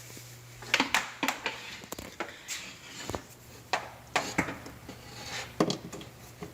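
Irregular sharp clicks and knocks, about a dozen, from hands handling parts of the refrigerator while its power cord is being plugged back in, over a faint steady hum.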